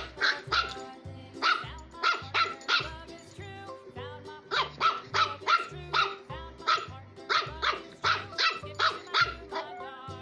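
A 13-week-old Chihuahua puppy barking over and over in quick runs of short, high barks, angry at being shut in its crate for a time-out. Background music with a steady bass beat plays underneath.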